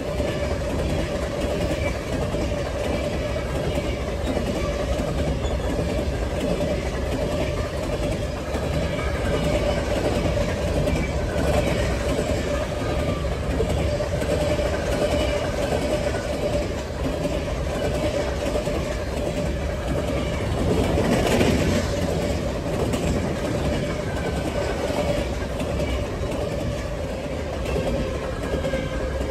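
Freight train of covered hopper cars rolling past at speed: a steady rumble and clatter of steel wheels over the rails. A steady high tone runs above it, and there is a brief louder swell about two-thirds of the way through.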